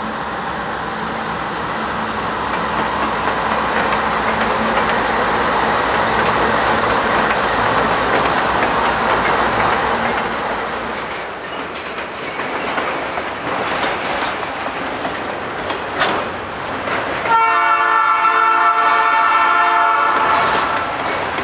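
Train passing close by, with a steady rumble of rolling wheels and cars. Wheels click over rail joints through the middle, and near the end a locomotive horn sounds one chord for about three seconds.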